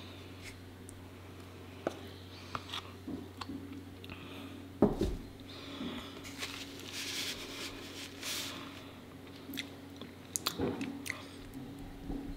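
Close-miked sticky eating sounds of raw honeycomb being chewed and handled: scattered wet clicks and smacks, with one sharp knock about five seconds in.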